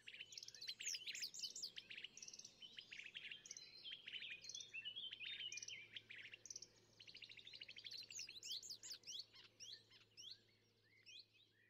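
Faint chorus of several songbirds singing at once, quick chirps and trills overlapping, thinning out and fading away near the end.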